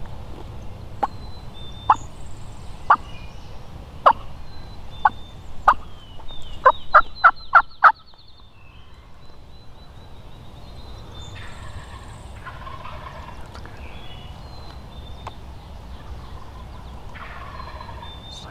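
Wild turkey calls: sharp single clucks about once a second, then a quick run of five yelps. Fainter gobbles come from farther off twice in the later part.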